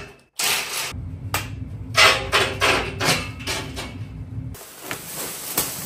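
Knocks and clatter of tools and bolts on a dirt bike's shipping crate as it is taken apart, roughly three knocks a second, over a low rumble that stops near the end.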